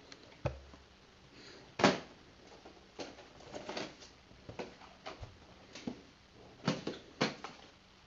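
Light, scattered clicks, taps and rustles of plastic VHS tape cases being handled and sorted on a carpeted floor, about one small click or tap every half second or so, with one soft low knock near the start.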